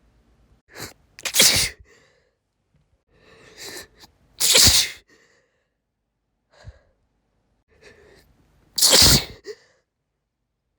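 A woman sneezing three times, each sneeze led by a short catching breath. The sneezes come about a second and a half, four and a half and nine seconds in.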